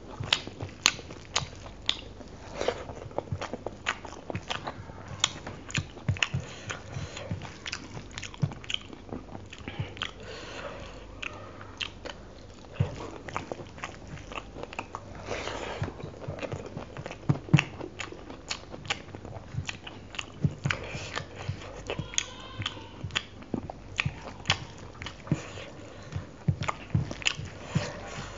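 Close-miked chewing and lip smacking of chicken curry and rice, with frequent sharp wet mouth clicks.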